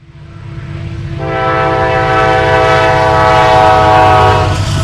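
Diesel locomotive air horn sounding one long chord-like blast over the low rumble of the locomotive, the sound fading in at the start. The blast begins about a second in and stops just before the end.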